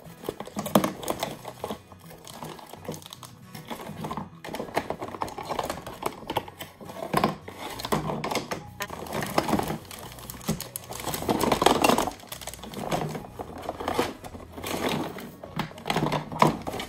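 Cardboard toy box being opened and plastic-bagged toy pieces crinkling and rustling as they are lifted out, with many light irregular clicks and knocks of plastic parts, over background music.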